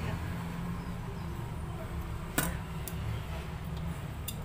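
Metal clicks of a 10 mm wrench working a bolt loose on a foot pump, with one sharp click about halfway through and a few lighter ones near the end, over a low steady rumble.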